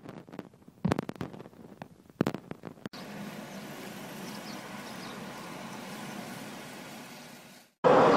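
Steady noise of a car on the move, heard from inside the cabin, after a few sharp knocks of a phone being handled. The sound cuts off suddenly near the end.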